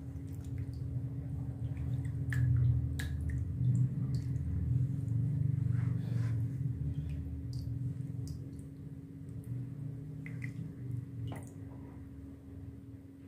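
Wet squelching and sloshing of a hand squeezing and stirring soft raw clay slurry in a plastic tub of water, with scattered drips, growing quieter near the end.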